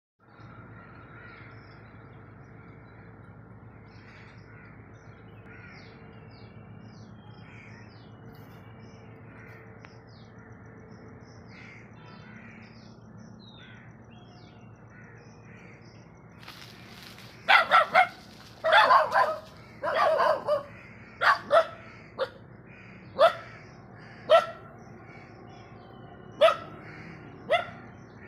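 Faint background with small birds chirping, then, from a little past halfway, a dog barking loudly: a few quick runs of barks followed by single barks every second or two.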